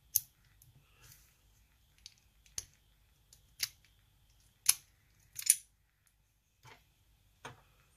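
Small metal lock parts clicking and tapping while the pins are worked out of a chamber of a Sparrows Revolver practice lock where they are getting stuck: about eight sharp, irregular clicks, the loudest right at the start and a little before five seconds in.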